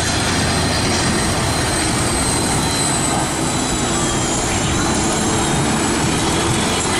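Deutz-Fahr Agrotron 265 tractor's diesel engine running hard under full load, loud and steady, while it drags a weight-transfer pulling sledge through the dirt.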